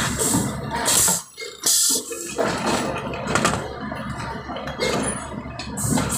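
Small metal parts clinking and rattling in plastic trays as they are picked and sorted by hand, in irregular bursts over a steady low machine hum.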